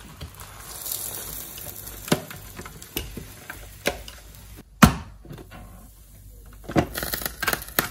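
Electric sandwich toaster being closed and handled: a brief soft hiss about a second in, then sharp plastic clicks and knocks of the lid and hinges, one loud knock a little before five seconds, and a quick run of small clicks near the end.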